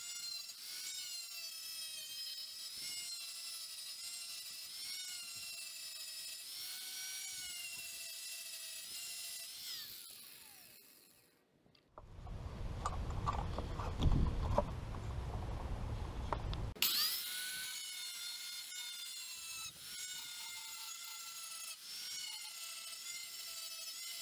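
Angle grinder with a cutoff wheel cutting into the edge of a steel circular saw blade, a high whine that wavers in pitch as the wheel bites. About ten seconds in it is switched off and winds down. After a few seconds of low rumbling and knocks from the clamp being handled, it spins back up and goes on cutting.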